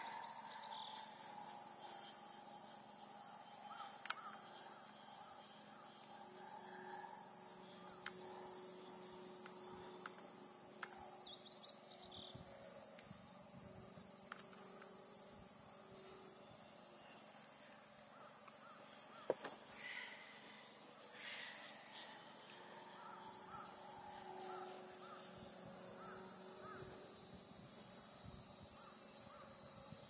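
Steady high-pitched insect chorus, with scattered faint bird calls. Two sharp clicks, one about four seconds in and another about two-thirds of the way through.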